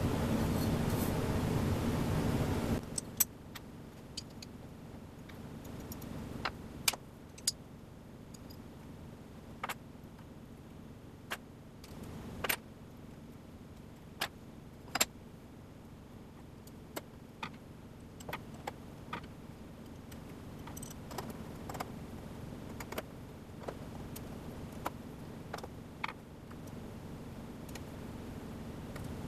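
Small metal parts and a screwdriver clicking and clinking against an aluminum plate, in scattered single clicks, as screws are set and turned by hand. A steady noise runs for the first few seconds and stops suddenly.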